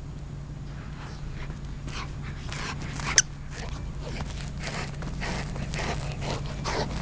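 Golden retriever panting and snuffling in quick irregular bursts as it paws and noses at a rubber chicken toy, with a single brief, sharp high squeak about three seconds in.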